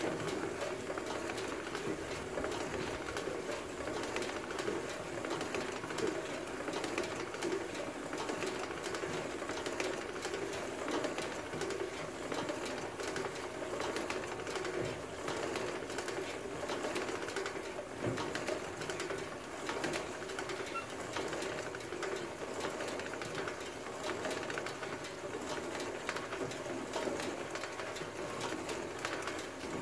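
Befco Green-rite 258 overseeder turned slowly by hand crank: a steady rattling and clicking of the drive chain, sprockets and seed meters as seed is metered out for a calibration test.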